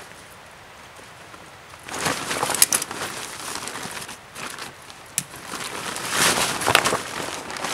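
Rustling and crinkling of a nylon stuff sack being opened and emptied, starting about two seconds in, with a few sharp clicks among it and the loudest handling near the end.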